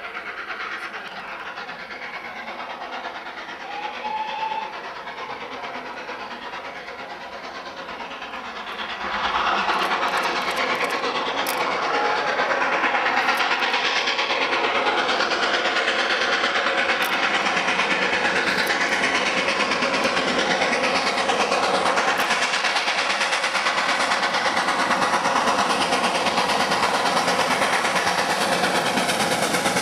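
GWR Castle class four-cylinder 4-6-0 steam locomotive 5029 Nunney Castle approaching with its train. Its sound grows sharply louder about nine seconds in and stays loud and steady as it draws near.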